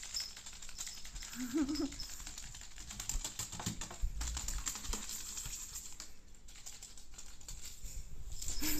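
Crinkly cat teaser toy being shaken and rustled: a dense, irregular run of crackles and clicks.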